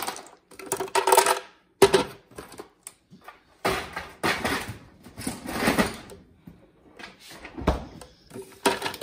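Ice cubes being dropped into a blender jar, clattering in irregular bursts, with one sharp knock about two seconds in.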